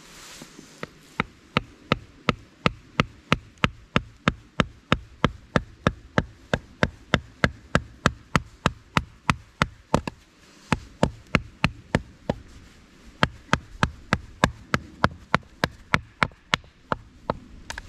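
Batoning firewood: a wooden baton striking the spine of a blade driven into a log, in steady sharp knocks about three a second, with a short pause about ten seconds in.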